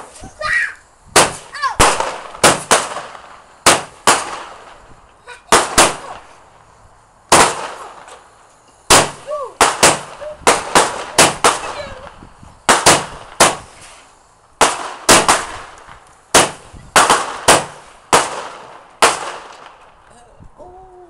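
Fireworks going off: a rapid, uneven string of about thirty loud bangs, some in quick pairs and triples, each with a short echoing tail. They stop about nineteen seconds in.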